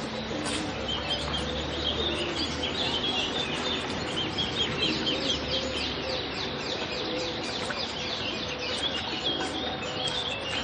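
Pond ambience full of birds: many small birds chirping rapidly and overlapping, growing denser from about the middle, with lower calls from larger birds underneath.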